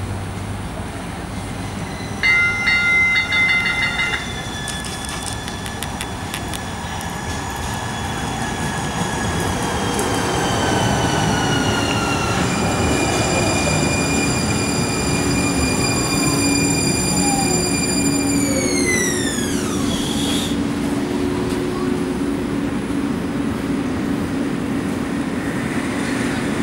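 Siemens S70 (TriMet Type 5) light rail train braking into a stop. A rapid, ringing warning bell sounds for about two seconds near the start. Then the electric traction drive whines in several tones that slowly fall, jump up in pitch about halfway, and dive steeply to nothing as the train halts, leaving a steady low hum while it stands.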